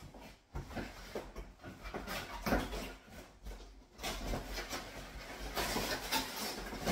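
Hands rummaging in a cardboard box: scraping cardboard and rustling packaging with scattered knocks, turning into a denser, steadier rustle about four seconds in.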